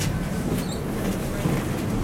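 Tatra T3 tram under way: a steady low rumble of its wheels and running gear on the rails, heard from inside the car.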